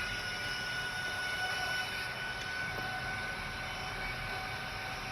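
Small electric blower running with a steady high whine, used to cool down a phone's circuit board; a second, lower tone joins about three seconds in.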